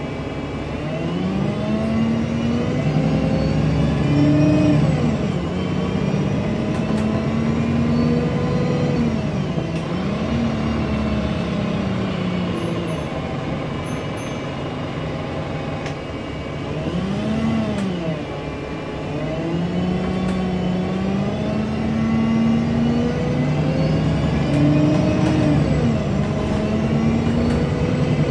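Alexander Dennis Enviro 200 MMC bus's diesel engine and drivetrain, heard from inside the passenger saloon as the bus drives. The engine note climbs in pitch and falls back again several times as the bus accelerates through its automatic gears, over a constant road rumble.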